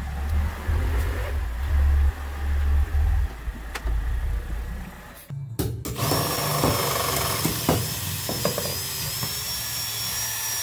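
A low rumble for about the first five seconds; then, after a short break, a cordless drill runs with a steady high whine as it drills pilot holes through a steel wheel chock's bolt holes into a wooden trailer deck, with scattered clicks.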